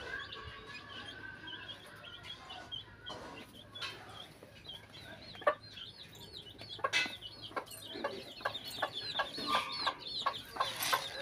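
Domestic chicks peeping in rapid, short high chirps, busier from about halfway through, with a hen clucking and a few sharp clicks.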